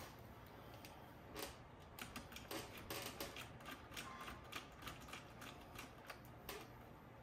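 Light, irregular clicks and taps, several a second, starting about a second in: a screwdriver and small screws being worked on the metal chassis of an A&D GX-7100LTD cassette deck as it is screwed back together from the bottom.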